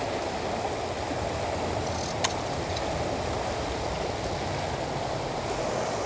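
River water running steadily over shallows and a riffle, an even rushing. One sharp click about two seconds in.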